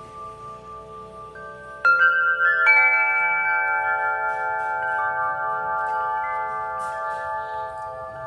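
Dofrance tubular wind chimes ringing. A few tones ring faintly at first. About two seconds in, the wooden striker disc hits several tubes in quick succession, and the overlapping tones sustain and slowly fade.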